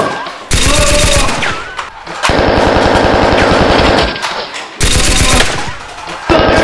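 Bursts of rapid automatic gunfire, a movie-style machine-gun sound effect laid over a Nerf blaster fight. There are several bursts of fast, even shots with short gaps between them, the longest in the middle.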